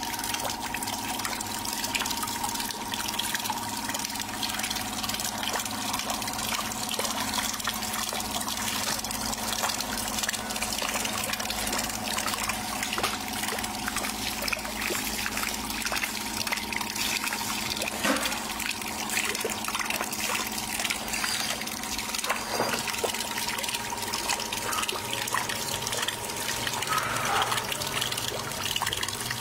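Water splashing and churning steadily as a paddle wheel spins through a tub of water, with a steady hum underneath.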